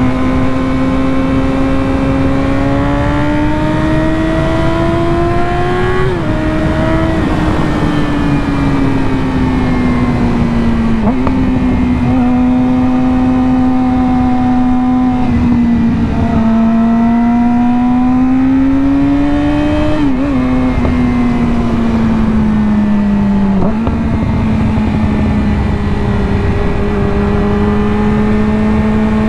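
Yamaha R6's inline-four engine through a slip-on exhaust with the catalytic converter deleted, pulling steadily while riding. Its pitch climbs slowly and then jumps sharply up or down every few seconds as gears change, over a steady rush of wind.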